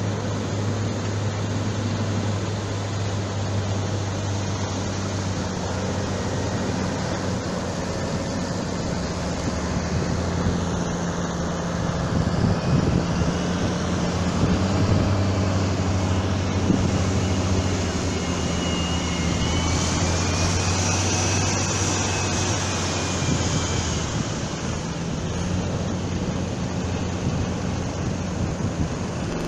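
An engine drones steadily over the noise of surf breaking on the beach.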